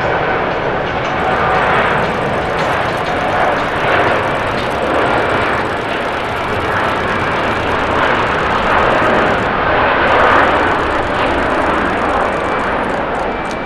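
Jet engines of a Qantas Boeing 787-9 Dreamliner, Rolls-Royce Trent 1000 turbofans, running at takeoff thrust through the takeoff roll and liftoff, a loud, steady rush that swells slightly now and then.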